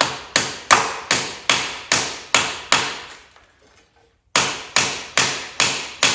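Brass hammer striking a rusted, stuck bolt in a steady rhythm, about two and a half blows a second, each blow with a short metallic ring. A first run of seven blows is followed by a pause of about a second and a half, then another run. The blows are meant to drive the bolt out without damaging its thread.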